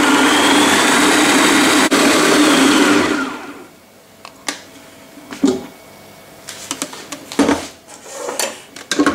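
Kenwood kitchen machine's food processor attachment running at speed, puréeing chicken liver pâté, then winding down and stopping about three seconds in. After that come scattered clicks and knocks of the plastic processor bowl being handled and taken off the machine.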